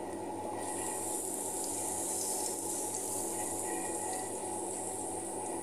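Minced garlic sizzling in hot oil in a nonstick frying pan as it is stirred with a wooden spoon: a steady hiss that grows louder about half a second in.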